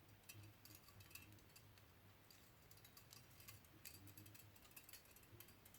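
Near silence: room tone with a faint low hum and scattered faint clicks.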